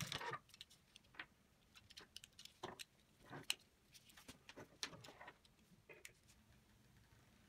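Scattered light metallic clicks, taps and rustles as the motor-and-gear plate of an electric shashlik maker is worked loose and lifted out of its thin sheet-metal housing. The clicks come irregularly, strongest near the start, and die away about six seconds in.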